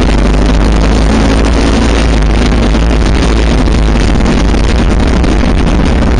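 Motorcycle riding steadily along a gravel track: the engine runs at an even pace under loud, steady wind rumble on the microphone.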